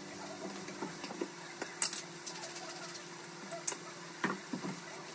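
Kitchen cooking clatter: a metal utensil clinking against frying pans on the stove, with one sharp metallic clink about two seconds in and a few duller knocks near the end, over a faint steady hum.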